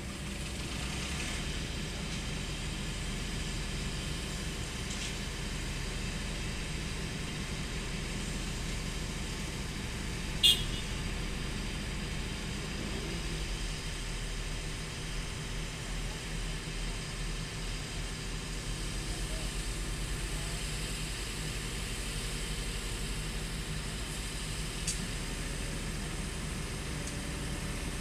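Excavator diesel engine running steadily, its note dropping a little about halfway through. A single sharp metallic clank stands out about ten seconds in, with a lighter one near the end, typical of steel being handled.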